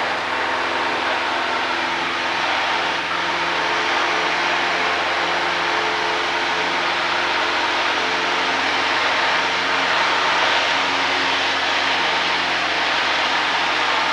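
Single-engine Cessna's piston engine and propeller droning steadily in flight, heard inside the cabin together with the rush of air past the airframe.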